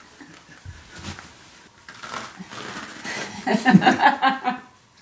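A person's voice, brief and indistinct, about three and a half seconds in, after faint rustling and a couple of soft thuds.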